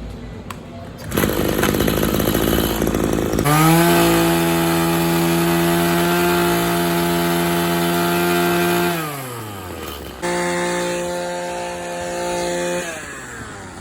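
Maruyama two-stroke string trimmer engine running: a rough rattling idle about a second in, then revved to a steady high speed for about five seconds before the revs fall away, and revved once more near the end before falling again. The trimmer is running after a no-start fault put down to a bad ignition coil and a broken, leaking primer bulb.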